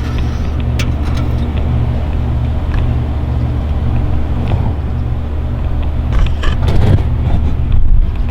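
A steady low mechanical hum, with a few clicks and knocks that grow louder around six to seven seconds in.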